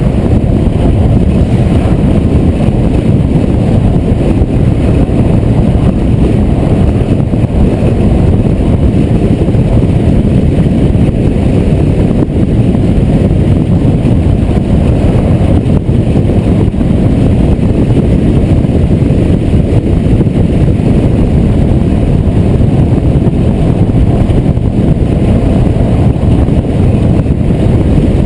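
Steady, loud rumble of a car driving at highway speed: tyre, road and wind noise picked up by a camera mounted outside on the car's hood.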